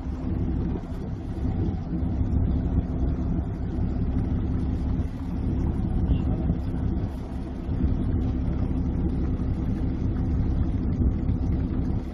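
Fishing boat's engine running steadily: a low rumble with a steady hum.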